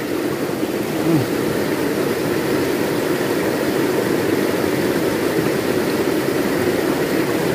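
Shallow rocky stream rushing steadily over a small cascade.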